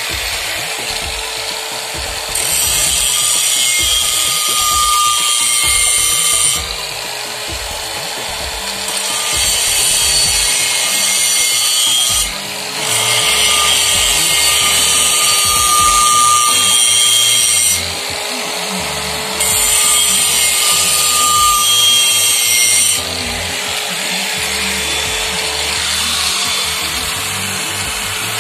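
Electric angle grinder running with a steady whine, grinding the inside of a Mahindra Bolero pickup's cast-iron brake drum. It bites harder in four long spells of louder, harsher grinding, with lighter contact between. Near the end it is held off the drum, running free.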